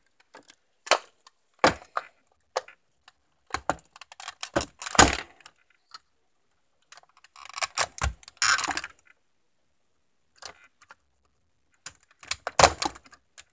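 Hard plastic clicking, knocking and rattling as the clear helmet dome of a Buzz Lightyear action figure is worked back into its frame by hand. The knocks come every second or so, loudest about five seconds in, with a longer rattle around eight seconds.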